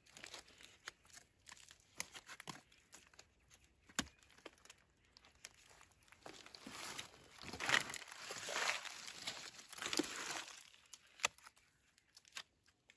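Rustling and crackling with scattered sharp snaps and clicks as wild mushrooms are pulled and cut off by hand. The rustling swells louder between about 6 and 10 seconds in.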